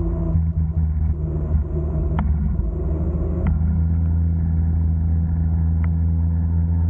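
Small 49cc two-stroke engine of a gas stand-up scooter running at a steady cruising speed under way, a low even drone that holds one pitch.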